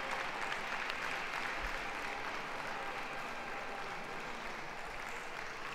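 Audience applauding steadily, slowly easing off toward the end.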